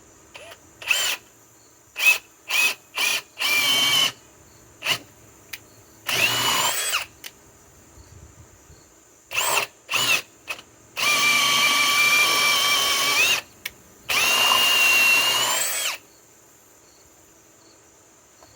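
Ryobi PBLHM101 hammer drill with a 3/8-inch bit drilling holes: several short trigger pulls, then longer runs of one to two and a half seconds, the motor's pitch rising each time it spins up.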